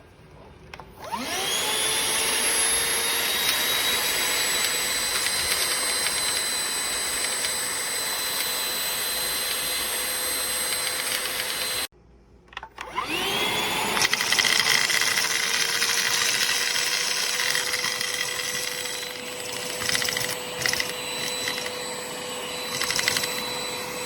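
Shark CH964AMZ cordless stick vacuum's motor spins up with a rising whine about a second in and runs steadily. It switches off briefly about halfway, spins up again and runs on, with some irregular rattling and sucking noises near the end.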